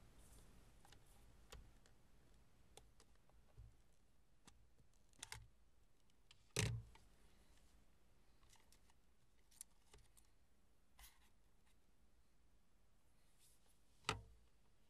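Sparse clicks and knocks of a vintage movie camera being handled by hand: its metal film-chamber side door unlatched and lifted off, then the film reels inside touched. The loudest knock comes about six and a half seconds in, another sharp one near the end, with near silence in between.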